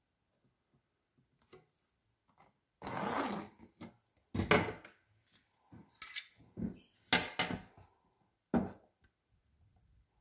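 Handling noise on a tabletop: a run of about six knocks and bumps as drawing tools are moved about. The first, about three seconds in, is a longer scrape.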